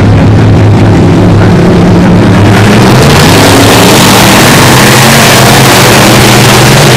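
A pack of dirt-track stock cars racing by at full throttle, their engines a loud, steady drone. About three seconds in the sound turns brighter and fuller as cars sweep past close by.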